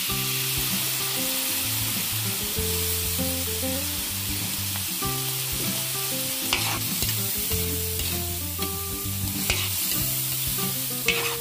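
Shredded chicken frying in a large steel wok: a steady sizzle after a sauce is poured in, with the metal spatula scraping and clicking against the pan as it is stirred. Low held notes of background music run underneath.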